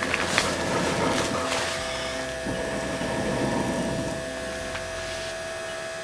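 Small battery-powered fan of a wood-gas camp stove running steadily with a hum, blowing air through the burning sticks while the stove has not yet fully fired up. A couple of knocks sound near the start.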